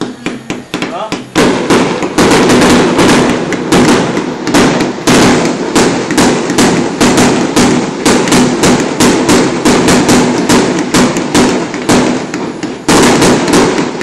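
Aerial fireworks bursting in a dense, loud barrage of rapid bangs. A few lighter pops open it, then from about a second and a half in the bangs come almost without pause. They ease off briefly shortly before the end, then pick up again.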